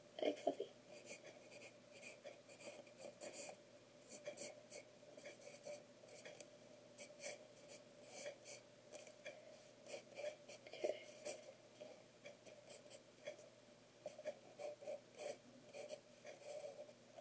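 Pencil sketching on paper: faint scratching in short, irregular strokes.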